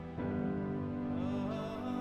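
Slow, sad background music of long held notes. It swells in just after the start, and higher notes join in about a second in.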